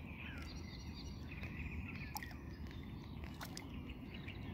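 Faint birdsong over a steady low rumble, with a few small splashes and drips from a hand and a fish in the water at the boat's side.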